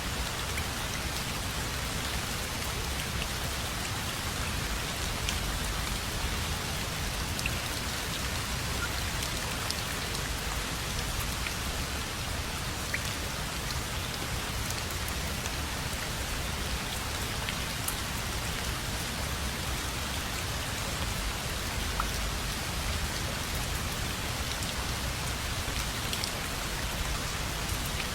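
Steady rain falling, an even hiss with scattered individual drops ticking on surfaces.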